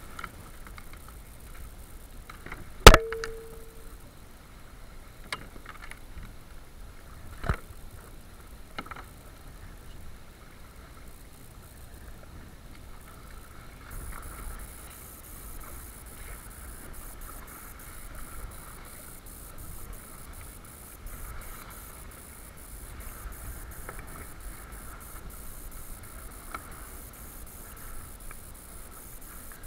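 Sailing kayak on choppy sea: a steady wash of water against the hull with wind. About three seconds in a sharp, loud knock rings briefly, and a smaller knock follows about four seconds later.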